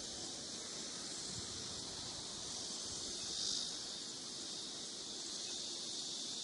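Steady high-pitched insect chorus, such as crickets or other summer insects, that swells briefly about halfway through.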